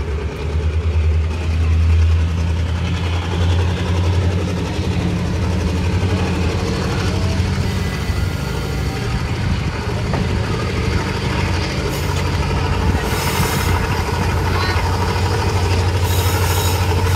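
Moving diesel-hauled passenger train heard from the side of a coach: a steady low drone and rumble of the wheels on the track. From about twelve seconds in, a few louder rattles and clacks.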